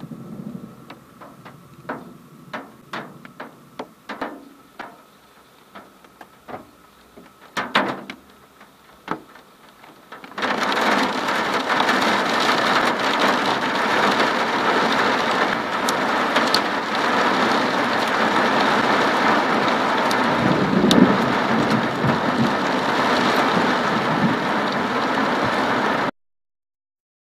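Storm rain starting on window glass: for about ten seconds single heavy drops tick against the glass, a few at a time. Then a downpour comes on all at once and hisses steadily, with a low rumble about two-thirds of the way through, before the sound cuts off suddenly near the end.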